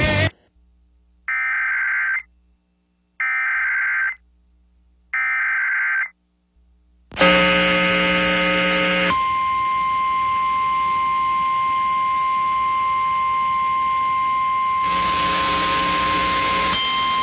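Emergency Alert System SAME header: three short bursts of digital data tones, each about a second long, followed by a loud steady alert tone that runs on for about ten seconds, with other tones layered over it near its start and near its end. Together they announce the start of a new broadcast warning.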